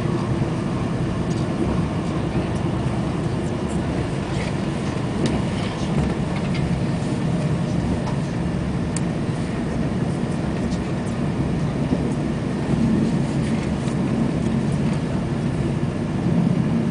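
Moving train heard from inside the passenger carriage: a steady low rumble of wheels on rails with a few faint ticks.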